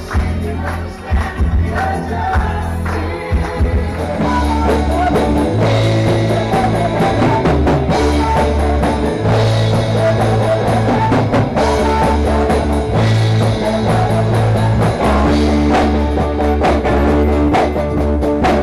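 Rock music with singing, a steady bass line and guitar, fading out at the end.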